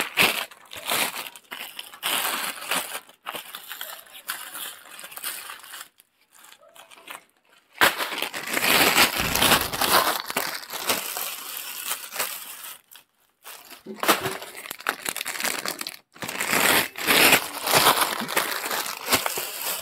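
Thin printed plastic broom sleeves crinkling as they are pulled down over grass brooms one after another, in bursts with short pauses between brooms.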